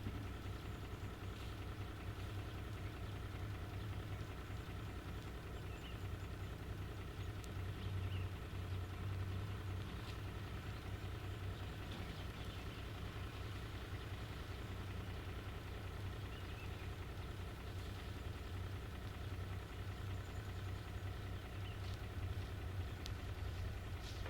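Heavy construction machine's diesel engine running steadily at a low, even hum, with a few faint clicks over it.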